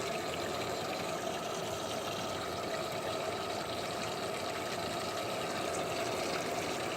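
Water running steadily in a bathtub, an even rush with no breaks.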